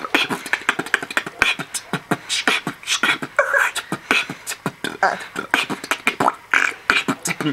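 Human beatboxing: a quick run of mouth-made clicks, pops, hisses and short buzzing vocal effects.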